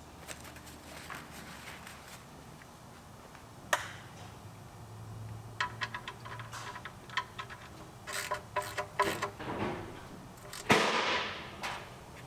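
Metal tools and engine parts clinking and clicking as they are handled, with a run of quick ticks in the middle. Near the end one louder metallic clank rings and dies away over about a second.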